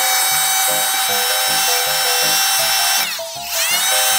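Handheld vacuum cleaner running with a steady high motor whine as it sucks loose static grass fibres off a model diorama. A little past three seconds in the whine drops in pitch and climbs back. Background music with a steady beat plays under it.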